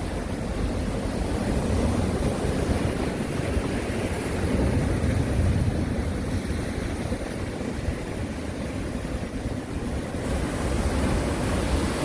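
Sea waves washing onto the shore in a continuous surf noise that swells and eases over a few seconds at a time, with a deep rumble of wind on the microphone underneath.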